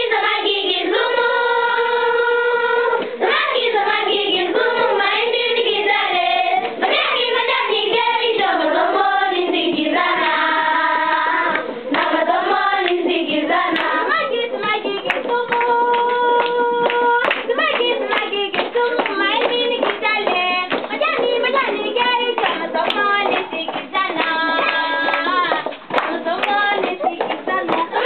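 A group of children singing together, clapping their hands along with the song, with several long held notes.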